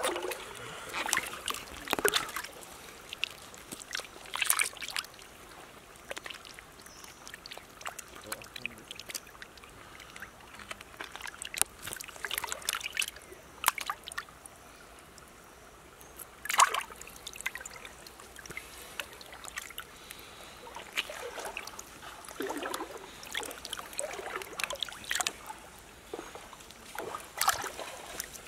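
Hands splashing and sloshing in shallow stream water while a turtle is gutted and rinsed, with trickling and irregular small splashes, a few of them sharper and louder.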